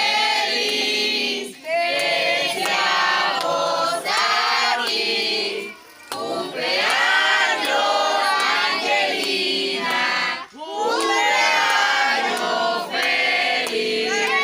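A group of people singing a birthday song together in chorus, in phrases with short breaks between them.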